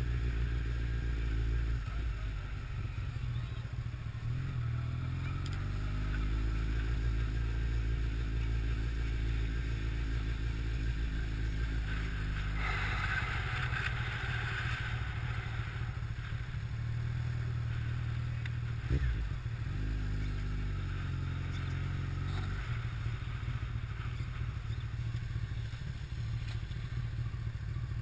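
Honda CBR1100XX Super Blackbird's inline-four engine running at low road speed, its pitch rising and falling with the throttle. About halfway through there are a few seconds of hiss, and later a single brief knock.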